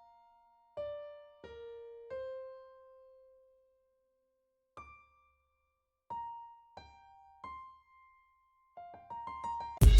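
Background music: single piano notes played slowly, one at a time, each ringing out with pauses of silence between them; fuller, louder music comes in at the very end.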